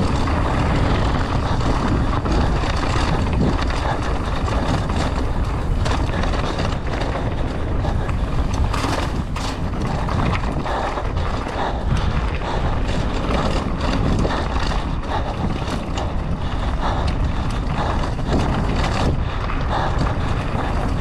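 Mountain bike descending a rough trail at race speed: wind buffeting the microphone over a constant clatter of the bike's tyres, chain and frame on rocks and roots, with frequent sharp knocks from hits.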